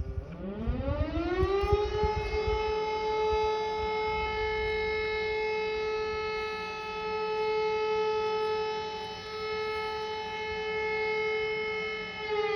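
Civil-defence siren winding up in pitch over about two seconds, holding a steady wail, then beginning to wind down at the very end. It is sounding an alert to take shelter.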